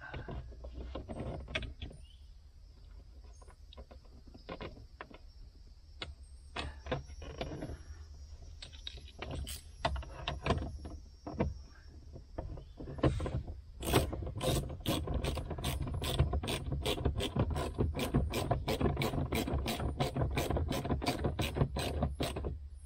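Ratcheting hand screwdriver driving a screw. Scattered clicks and knocks at first, then a steady run of ratchet clicks, about three a second, through the second half.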